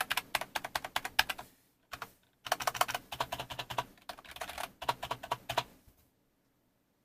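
Membrane gaming keyboard typed on quickly: rapid keystrokes in two runs, split by a short pause about two seconds in. The typing stops about six seconds in.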